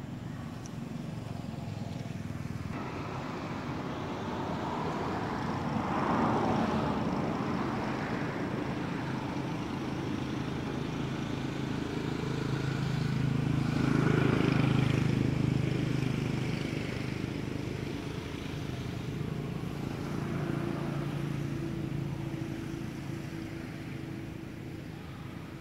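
Motor vehicles passing, engine hum and road noise swelling and fading: loudest about six seconds in, again around fourteen seconds, and more faintly near the end.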